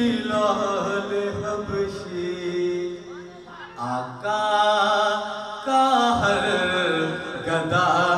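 A man singing an Urdu devotional naat into a hand-held microphone, unaccompanied, with long held and ornamented notes. The voice drops away briefly about three and a half seconds in, then goes on.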